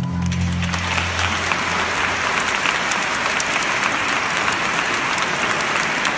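Audience applauding, a dense steady clatter of many hands clapping, as the last held notes of the music fade out in the first second.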